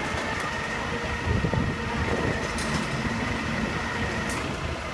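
Flatbed recovery truck running as it loads a car onto its tilted bed, with a low engine rumble and a steady high whine that cuts off near the end.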